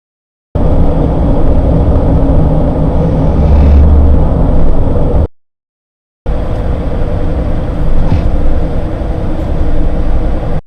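Cab noise of a 2017 Honda Ridgeline's 3.5-litre V6 at cruise, heard in two short recordings separated by a gap of silence. It is a low rumbling drone that swells strongly about 3 to 4 seconds into the first recording; the second recording has a steady tone over the rumble. This is the repeating sound the owner hears only between 1500 and 2500 rpm and wonders may be the Variable Cylinder Management at work.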